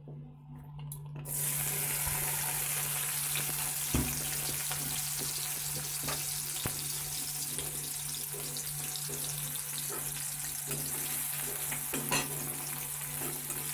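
Chopped onions sizzling in hot oil in a steel kadai. The sizzle starts suddenly about a second in as they hit the oil, then holds steady, with a few sharp taps of the spatula against the pan.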